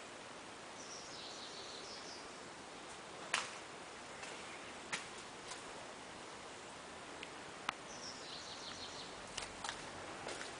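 Faint steady background noise with a small bird chirping a short phrase twice, about a second in and again around eight seconds, and a few sharp clicks scattered through, the loudest about three and a half seconds in.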